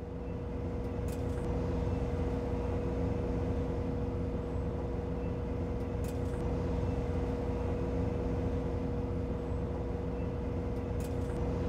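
Steady machine hum with a low rumble and a constant mid-pitched tone, broken by a few faint clicks.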